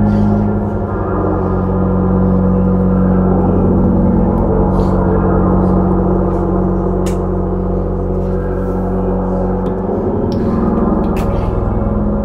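Low, sustained droning tones layered together, a ringing suspense drone of the kind used in horror-film sound design; it shifts slightly about ten seconds in.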